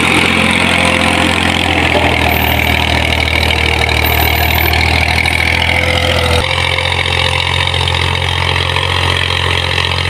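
Massey Ferguson tractor's diesel engine running steadily under load as it pulls a tine cultivator through the soil. A little over six seconds in, the sound changes abruptly to the tractor heard from farther off.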